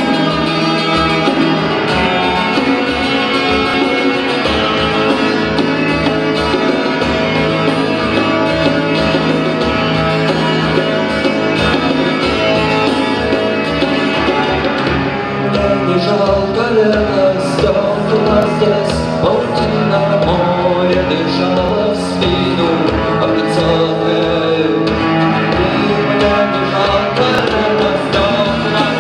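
Live acoustic band music: guitar playing over steady sustained low notes, with a busier melodic line entering about halfway through.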